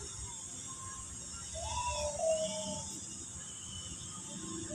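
A steady, high-pitched drone of insects in the trees. About two seconds in, a brief, wavering pitched call rises above it.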